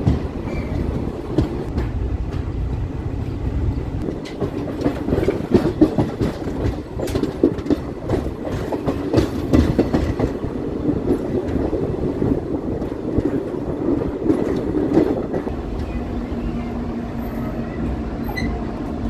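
Passenger train running along the line, its wheels clattering over the rail joints with many short sharp clicks over a steady rumble. A steady low hum joins near the end.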